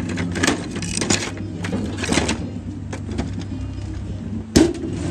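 Angle-grinder discs (flap discs, cutoff wheels and wire wheels) clattering and scraping against each other as a hand sorts through a drawer full of them. There is a sharp clack about four and a half seconds in, over a steady low hum.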